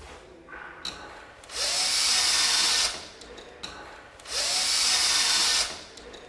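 Power drill run twice, about a second and a half each time, its motor rising in pitch as it spins up and then running steady at speed.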